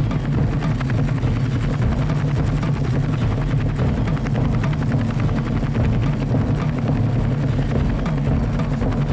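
Film soundtrack: a steady, rapid, low chopping rumble with no pause.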